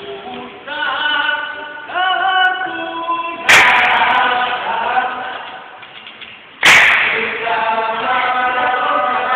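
Dikir barat group singing a chant in unison without instruments. Two sudden loud sharp bursts cut in, about three and a half and seven seconds in.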